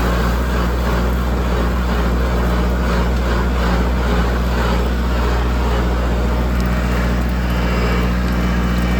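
Tractor engine running steadily at a constant speed, with a steady low hum and hiss and no change through the stretch.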